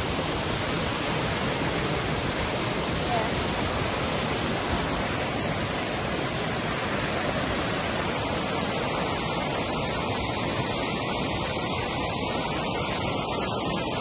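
Waterfall and the cascading stream below it, a steady, unbroken rush of falling water.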